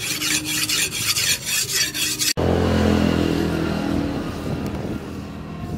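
A hand-forged leaf-spring steel knife blade is stroked back and forth on a wet whetstone, rasping about four times a second. It cuts off abruptly about two seconds in and gives way to a steady low drone.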